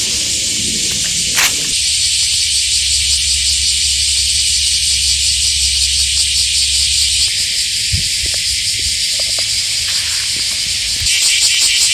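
Summer cicada chorus: a dense, high-pitched buzzing that turns more clearly pulsing near the end.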